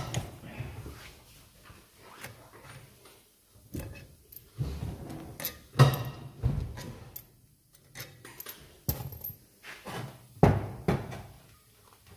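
Irregular metal clanks and knocks of an old brake disc and hub being handled and lifted, with quiet gaps between the strikes.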